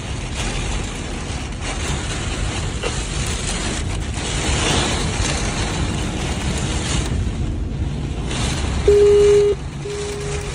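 Tornado-force wind rushing over a phone microphone, a dense unbroken noise. Near the end come two short, steady, single-pitch beeps, the first louder.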